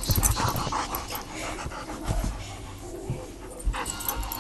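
Black Labrador panting while playing tug with a rope toy, with a few low thumps.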